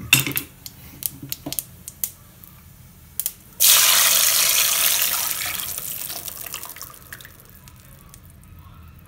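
Strained tomato soup poured into a pan of hot ghee and cumin seeds, sizzling with a sudden loud hiss about three and a half seconds in that dies down over several seconds: the tempering (tadka) of the soup. Before it, a few light clicks and taps.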